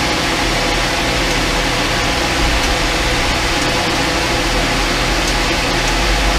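Pool pump running steadily in filter mode, with water rushing through the filter plumbing: a loud, even rush over a low hum.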